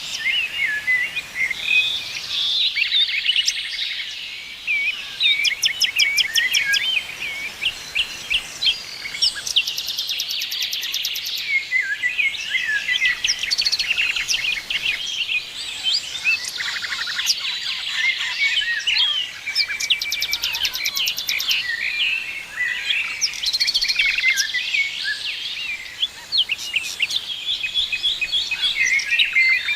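A chorus of small songbirds chirping and singing together: many short, quick notes overlapping, broken now and then by brief runs of rapid, very high repeated notes.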